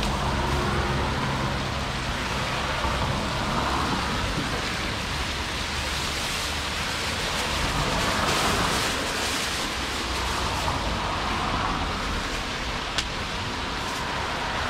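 Steady sizzling of julienned carrots frying in hot oil in large cast-iron pilaf kazans, over a low rumble. A plastic bag rustles as more carrots are tipped in, and a single sharp click comes near the end.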